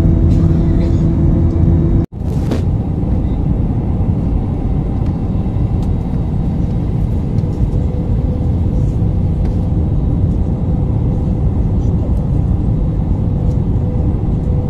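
Jet airliner cabin noise from a window seat over the wing: a steady low roar of engines and airflow. An abrupt break about two seconds in, where a roar with steady humming engine tones gives way to a smoother, even roar with a faint steady hum.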